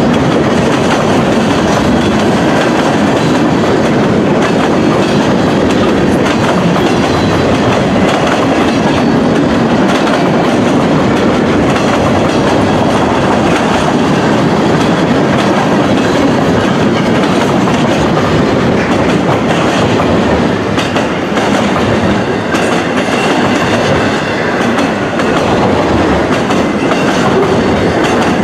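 Freight train cars rolling past: a steady, loud rush of steel wheels on rail with scattered clicks from wheels crossing rail joints, easing slightly for a few seconds about three-quarters of the way through.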